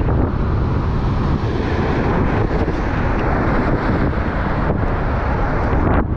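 Strong wind buffeting the microphone in a steady rumble, with rough surf breaking and washing over the coastal rocks.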